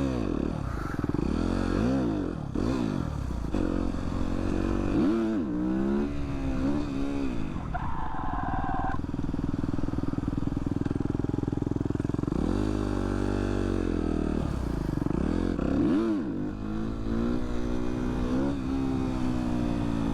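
Supermoto motorcycle engine riding through the gears, its pitch climbing under throttle and dropping back again and again. There is a short, steady, higher-pitched tone about eight seconds in.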